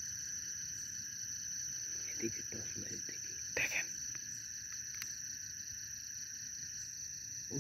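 Steady night chorus of crickets and other insects: a fast, even pulsing trill over high steady singing, with a few brief faint sounds, perhaps low voices, about two and three and a half seconds in.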